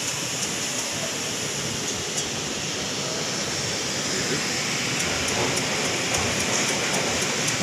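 Steady rushing background noise in a covered market hall, growing a little louder in the second half, with faint rapid ticking near the end.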